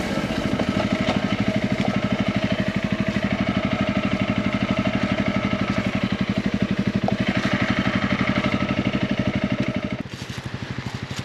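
Honda CRF250 single-cylinder motorcycle engine running at a steady, low speed with an even putter. Its level drops about ten seconds in.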